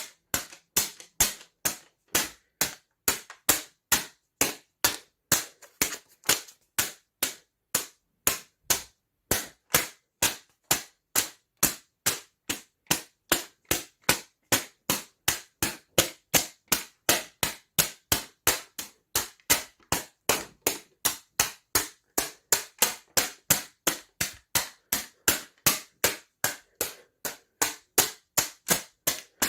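Paper snapping sharply over and over in an even rhythm, about three snaps a second.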